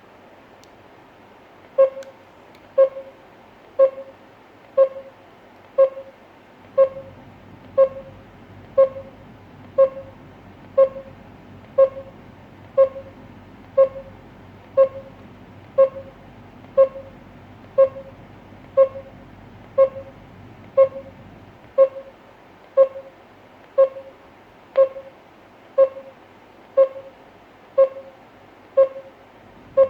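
GSM alarm control panel beeping: short beeps at one steady pitch, about one a second, starting about two seconds in.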